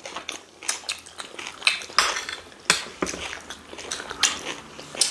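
Cutlery clinking and scraping against a plate during a meal of rice and stew, in irregular short clicks.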